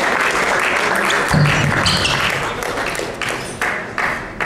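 Spectators clapping after a point in a table tennis match, the applause dying away. Then a table tennis ball knocks four times at an even pace, about 0.4 s apart.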